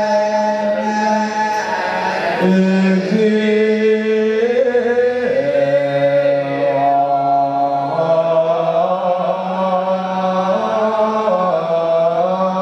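Ethiopian Orthodox religious chanting: voices held on long, drawn-out notes that move up and down in slow steps, with a steady low held tone underneath.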